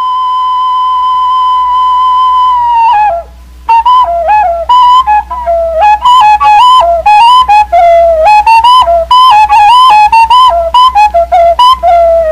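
Solo flute music: one long held note that grows louder, then slides down and breaks off about three seconds in. After a short pause, a quick melody of short notes follows, sliding between pitches.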